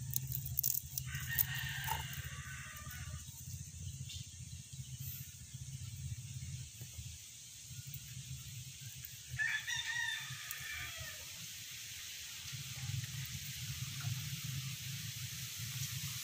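A rooster crowing twice, about a second in and again about nine seconds in, the second crow louder, over a steady low hum.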